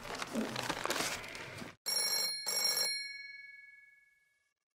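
Rotary-dial telephone's bell ringing: two short bursts of ringing about two seconds in, the second left to ring out and fade away.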